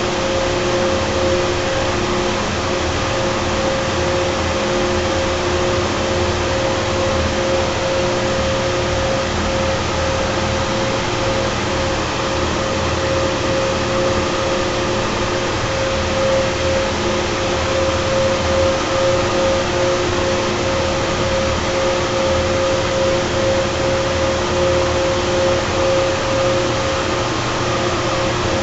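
Carrier 30HX screw-compressor chiller running: a loud, steady mechanical drone from its screw compressors, with a steady mid-pitched whine held throughout.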